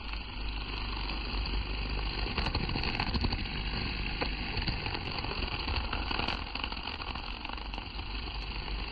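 Metabo 18V brushless cordless garden tool running steadily with an even whirring hum.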